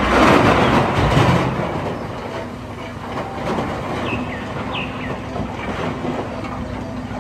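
Wheel loader's diesel engine running as it tips a bucket of earth into a dump truck's bed, the load pouring and rumbling loudest in the first second and a half, then settling to a steadier rumble.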